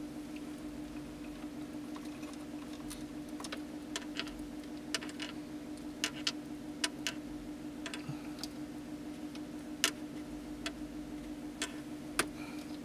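Fine silver chain links clicking and ticking irregularly against each other as the chain is twisted with pliers, tightening the links into a Cuban pattern. The clicks begin about three seconds in, over a steady low hum.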